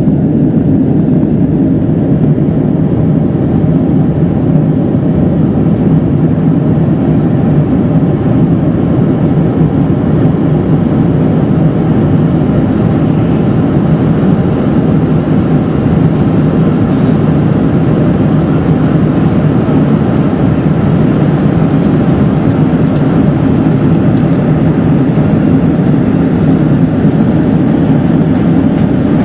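Steady cabin roar of a Boeing 747-400 at cruise, heard from a window seat over the wing. It is a constant, deep rush of engine noise from its General Electric turbofans and air streaming past the fuselage, with a faint high whine above it.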